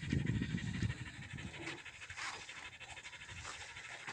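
Nelore cow, cast and roped on its side, breathing heavily; the loudest breaths come in the first second or so, then ease off.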